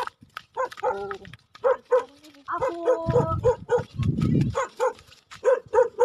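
A dog barking in quick repeated short barks, several a second, from about a second and a half in, with two brief low rumbles partway through.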